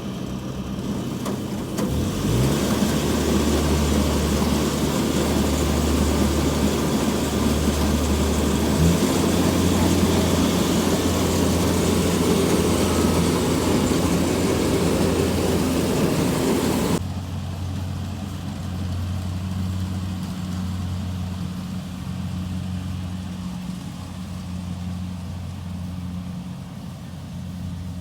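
Combine harvester's diesel engine running steadily. About two seconds in it gets louder with a heavy rush of mechanical noise on top, which cuts off suddenly at around 17 seconds, leaving the engine running more quietly.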